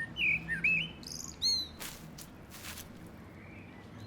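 A bird giving a quick series of short, sharp, arching chirps, bunched in the first second and a half, then quieter background.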